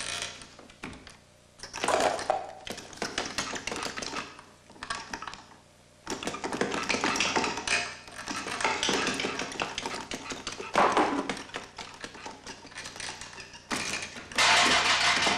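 Rapid, irregular clattering and rattling of small hard objects, in uneven spells with two short pauses in the first six seconds.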